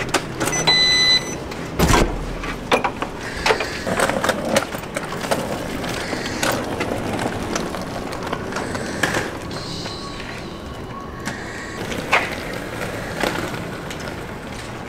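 A key card reader beeps briefly, and a loud thump follows about two seconds in. Then come footsteps and the wheels of a rolling suitcase clicking and clattering over paving.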